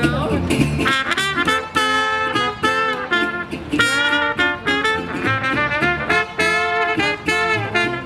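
Live swing-jazz band playing an instrumental passage: trumpet and trombone lines over a walking upright bass and strummed guitar.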